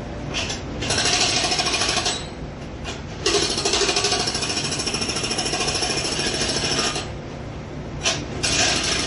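Jackhammer hammering in bursts, stopping and restarting: a short run about half a second in, another around one to two seconds, a long run from about three seconds to seven, a brief start near eight seconds, and it picks up again just before the end.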